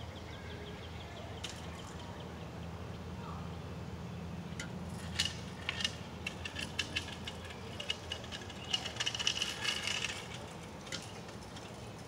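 A quick, irregular run of short, sharp clicks or chips, thickest from about five to ten seconds in, over a steady low rumble.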